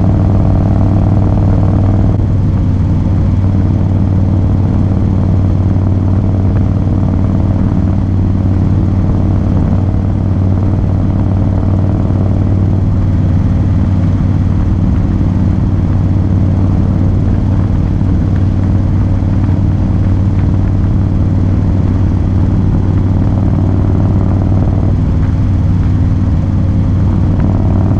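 Harley-Davidson Low Rider S's air-cooled Twin Cam 110 V-twin running steadily at highway cruising speed, with a steady low hum and no changes in revs.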